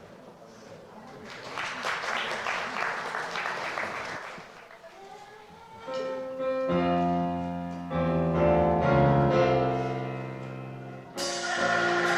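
Music: a few seconds of dense noise, then held chords that change every second or so, growing fuller and brighter near the end.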